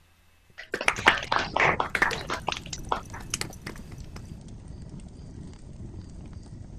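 Wood fire crackling: a loud, dense run of snaps and pops starting about half a second in, easing after about three seconds into a steady, quieter crackle over a low rumble.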